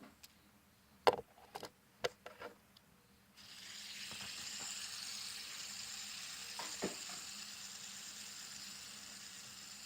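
A few clicks of handling, then a fidget spinner's ball bearing whirring steadily from about three seconds in, slowly getting quieter as it spins down.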